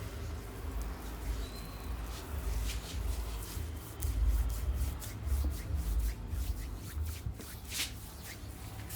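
Hands rubbing and working over skin and hair in a massage: a run of quick rubbing and scraping strokes with sharp little clicks, busier from about halfway through, over a low rumble.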